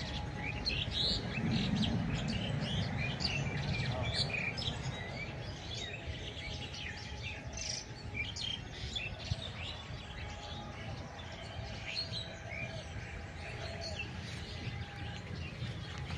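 Many small birds chirping and twittering together in quick short notes over a steady low background rumble.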